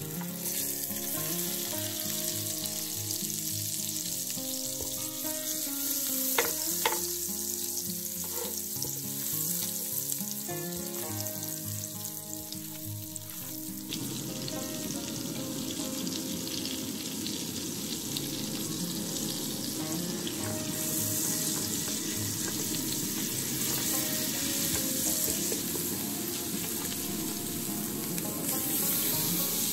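Butter melting and sizzling in an aluminium pan on a gas flame, stirred with a silicone spoon. The sizzle grows fuller and more crackly about halfway through as the butter melts and foams.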